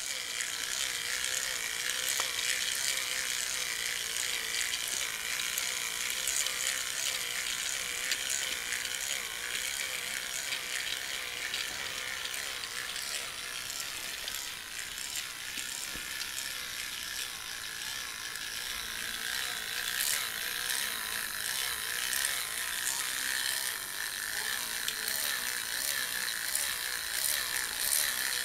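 Battery-powered toy trains running on plastic track: a steady high whir of small electric motors and plastic gears, with fast rattling clicks that grow stronger in the last third.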